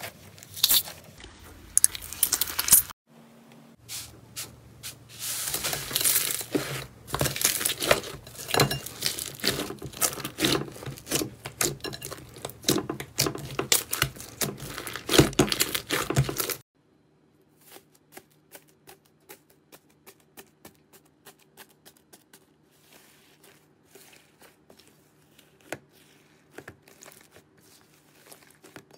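Slime squeezed and pressed by hand: dense, wet crackling and popping clicks from trapped air. About sixteen seconds in, this gives way to much quieter, soft squishing with sparse faint clicks over a low steady hum.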